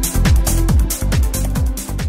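Background electronic dance music with a steady kick drum, about two and a half beats a second.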